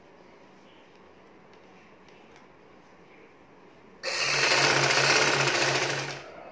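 A Vidya straight-stitch sewing machine is quiet for a few seconds while the fabric is set in place, with only faint handling ticks. About four seconds in it starts abruptly and runs a rapid, even burst of stitching for about two seconds, then stops.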